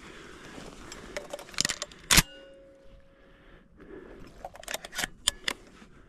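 A series of sharp clicks and clacks, with one louder metallic clink about two seconds in that rings briefly. A quick cluster of clicks follows near the end.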